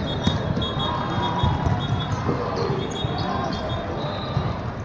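Basketball bouncing on a gym floor among repeated knocks and general game noise, with faint voices in the hall.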